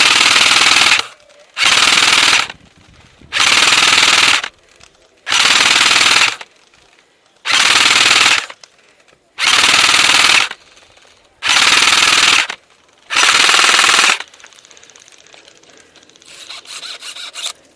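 Airsoft electric gun firing eight full-auto bursts of about a second each, roughly two seconds apart. The bursts are suppressive fire to keep an opponent pinned while teammates flank.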